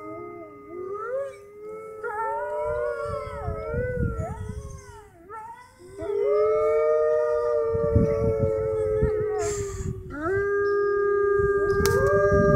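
Arctic wolves howling in chorus: several long howls at different pitches overlap, some sliding up and down. There is a brief lull about five seconds in, and new howls start around six and ten seconds in.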